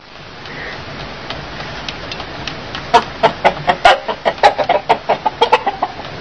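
Rooster clucking: a quick run of short, loud clucks, about five a second, starting about halfway through and stopping near the end, over a steady hiss.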